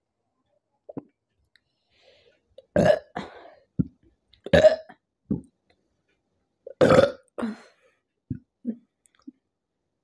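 A woman burping after drinking carbonated Mountain Dew soda: three loud burps about two seconds apart, each followed by a few shorter, quieter burps.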